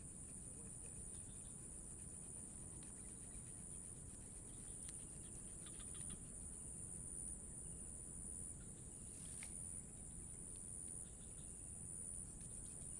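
Steady high-pitched drone of insects, with a low rumble underneath and a brief click about nine seconds in.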